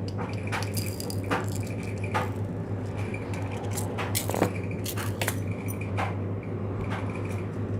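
Irregular sharp clicks, taps and crackles from handling a plastic tub of slime, over a steady low hum.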